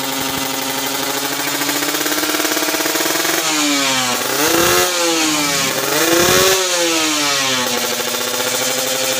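Kawasaki Ninja RR 150's two-stroke single-cylinder engine running steadily, blipped twice by hand on the stand partway through, rising and falling in pitch before settling again. It is being tested during a workshop service and tune.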